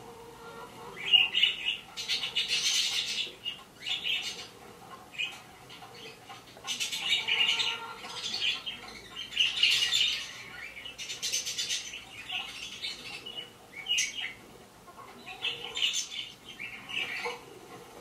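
Parrots screaming and squawking through computer speakers: a string of harsh, high calls, each lasting up to about a second, with short pauses between them.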